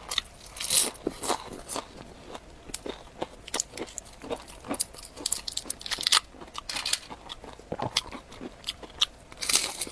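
Close-miked eating sounds: crisp bites and crunches with wet chewing and crackling mouth noises, louder crunches about half a second in and again near the end.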